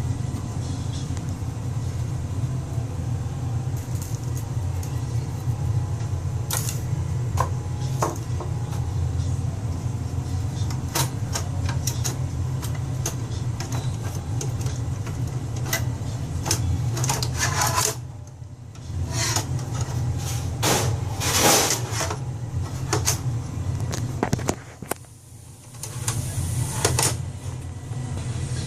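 Steady low machine hum with scattered clicks and clanks of metal server hardware being handled, as a hard drive and its drive bracket are worked on. The sound drops out briefly twice in the latter half.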